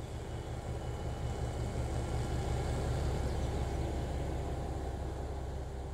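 Diesel engine of a JR Shikoku 2000-series tilting railcar idling while the train stands stopped: a steady low rumble that grows a little louder toward the middle, then eases.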